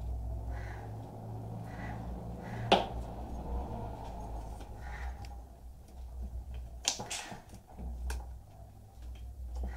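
Sharp clicks and knocks of an opened desktop computer power supply's sheet-metal casing and parts being handled, a few scattered strikes with a pair close together near the end, over a low steady hum.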